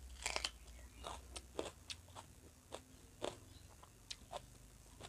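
A person chewing a mouthful of rice and curry eaten by hand, close to the microphone. The chewing comes with about a dozen sharp, irregular crunches.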